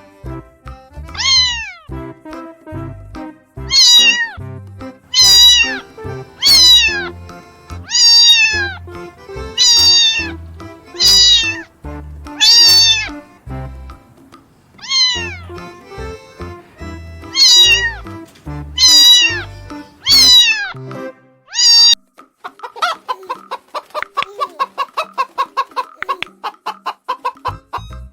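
Domestic cat meowing again and again, about a dozen drawn-out meows, each rising then falling in pitch, over background music. About 22 seconds in the music stops and a quick run of short pulsing calls follows.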